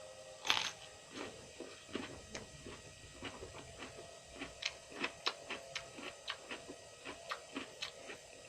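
A person biting and chewing crunchy raw vegetables close to the microphone: one loud crunching bite about half a second in, then a steady run of small crunches, about two or three a second.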